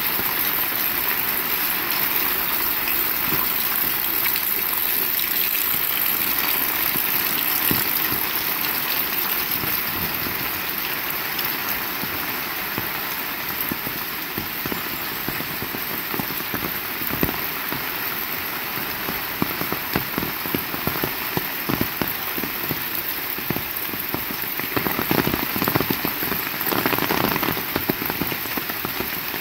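Heavy rain falling steadily, with a dense patter of close drops striking surfaces. It swells louder for a few seconds near the end.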